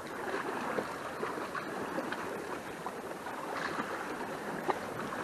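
Sea water sloshing and washing against the rocks: a steady rush with scattered small splashes and clicks.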